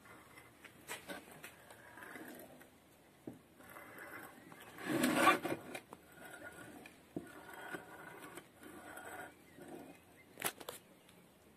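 Metal parts of a homemade chainsaw-chain sharpening jig being handled and swivelled: scattered clicks and knocks of steel, with one louder scrape about five seconds in and sharp clicks near the end.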